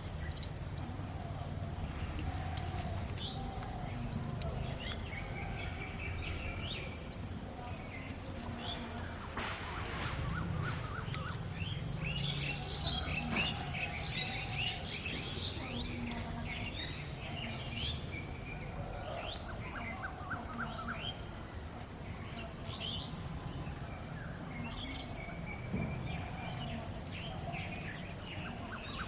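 Birds chirping and calling over a low steady outdoor rumble, with a dense flurry of calls about halfway through.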